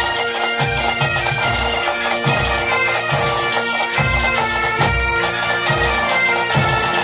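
Galician traditional music on bagpipes (gaita), a steady drone under the melody, with a low drum beat.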